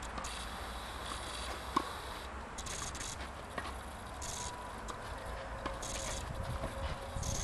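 Tennis ball strikes on an outdoor clay court, a distance away: one sharp racket hit about two seconds in and a few fainter knocks. Low wind rumble and short bursts of high buzzing repeat every second or so.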